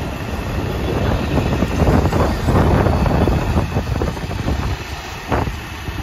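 Wind buffeting the microphone over the rumble of a moving vehicle, gusting unevenly.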